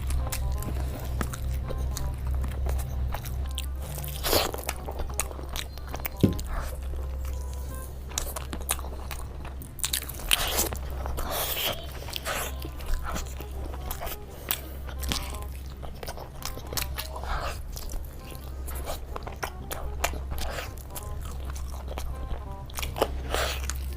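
Close-miked eating of biryani: repeated bites, crunches and wet chewing in quick, irregular clicks and smacks. A steady low background music bed runs underneath.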